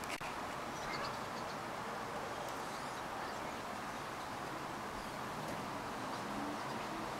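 Steady outdoor background hiss, with one sharp click just after the start and a few faint, brief high chirps.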